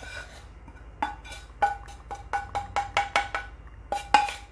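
Small metal pan being tapped over a steel bowl: quick ringing metallic knocks, about four a second, for a couple of seconds, then two more near the end. The knocks shake roasted chilli and coriander powder out of the pan onto the chicken.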